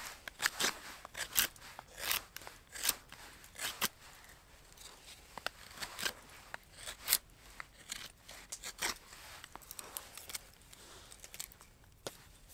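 Knife blade whittling a stick of wood: a run of short, sharp shaving strokes, close together for the first four seconds and then sparser.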